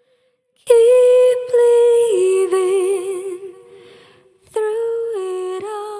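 Outro music: a wordless voice holds a note, drops a step into a wavering vibrato and fades. The phrase comes twice, the second starting about four and a half seconds in.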